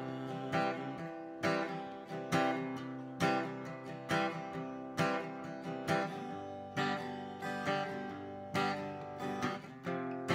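Acoustic guitar strummed alone in a steady rhythm, with a strong stroke about once a second and lighter strokes between: an instrumental break in the song.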